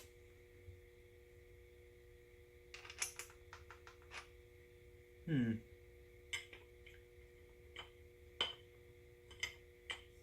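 Light metallic clicks and clinks of a wheel guard being handled and tried onto the head of a cordless angle grinder: a cluster of quick clicks about three seconds in, then scattered single clicks.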